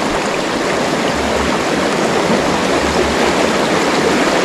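Shallow, rocky river running fast through rapids: a steady rush of water over stones.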